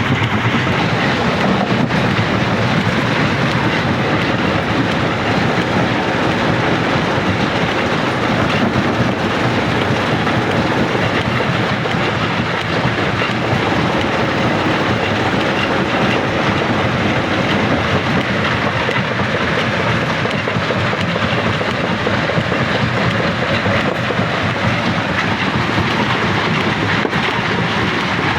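Rock crusher running, crushing stone with a continuous, steady rattling and grinding.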